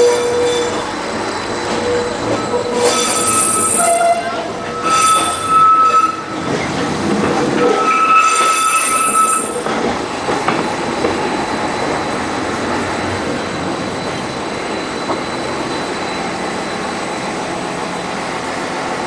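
Rack railway railcar running through curves, its wheels squealing high-pitched four times, each for a second or so, during the first half, then running on with a steady rolling noise.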